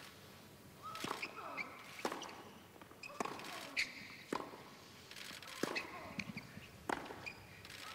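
Tennis rally on a hard court: racket strikes on the ball about every second and a bit, around seven hits, the players grunting with some of their shots.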